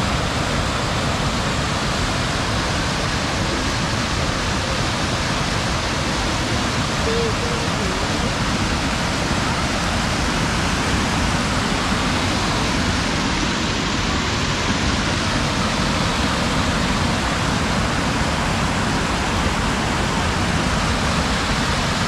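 Creek water pouring over a small waterfall: a steady, even rushing that does not change.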